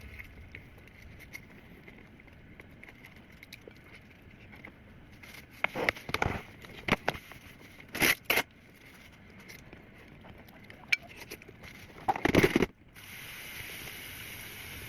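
Short bursts of close crackling and crunching, several about halfway and the loudest near the end, followed by a steady hiss.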